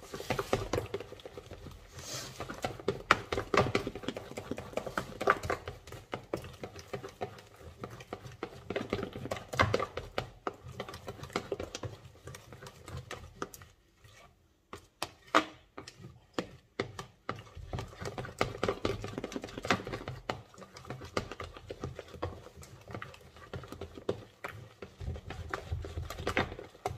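A metal spoon stirring thick cake batter in a plastic mixing bowl, with rapid clicking and scraping against the bowl's sides. The stirring slows to a few scattered knocks about halfway through, then picks up again.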